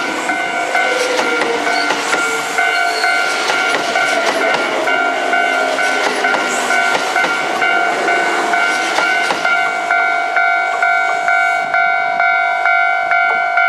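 Kintetsu electric express train of 5209- and 1230-series cars passing a level crossing, its wheels clattering over the rail joints. The train clears about nine or ten seconds in. Throughout, the crossing's warning bell keeps ringing at about two strikes a second.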